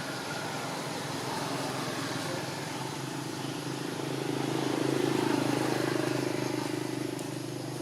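A motor vehicle's engine hum that swells to a peak about midway and then fades, as a vehicle passes by.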